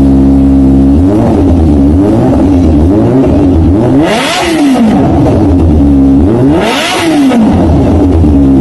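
Kawasaki ZX25R's inline four-cylinder engine, fitted with an SC Project CRT carbon full-system exhaust, idling and then being revved on the spot. After a second of steady idle the throttle is blipped repeatedly, with two sharp high revs about four and seven seconds in, each rising and falling in pitch. Very loud.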